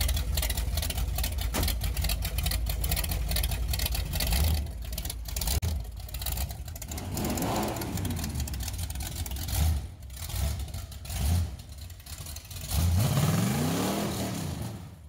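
Oldsmobile Rocket 350 V8 running through open headers, the engine of a rat rod, revved up and back down twice, once about halfway through and again near the end.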